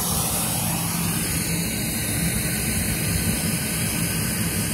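A vehicle engine running steadily with a constant low hum under a hiss.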